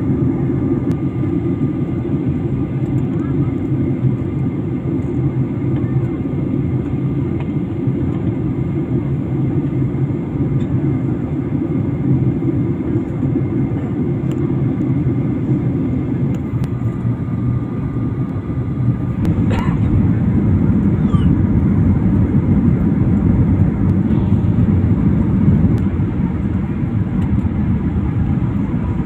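Steady cabin noise of an airliner in descent: a continuous rumble of engines and airflow with faint steady whining tones. About two-thirds of the way through there is a brief click, and the rumble then grows a little louder.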